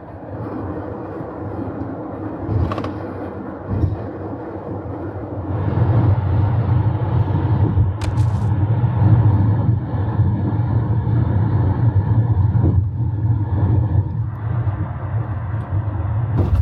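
Camper van driving on the highway: a steady low rumble of road and engine noise, getting louder about five seconds in, with a couple of faint clicks near the middle.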